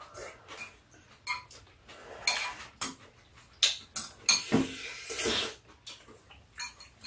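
Metal chopsticks clicking and clinking against ceramic bowls, with a few short bouts of noodles being slurped.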